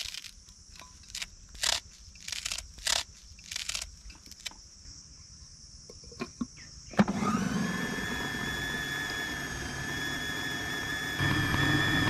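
A knife cutting bunches of fresh coriander into a food processor bowl, making scattered short snips and taps. About seven seconds in, the lid clicks on and the small electric food processor's motor starts, running with a steady whine as it chops coriander, mint, ginger, garlic and green chilli into a paste. It steps louder near the end.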